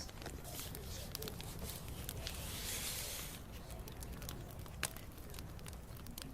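Wood bonfire crackling, with scattered sharp pops over a low steady rumble of the flames. A brief rushing hiss rises for about a second around two to three seconds in, and one louder pop comes near the end.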